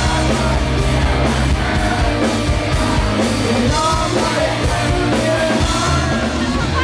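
Live rock band playing loud: electric guitars over a drum kit.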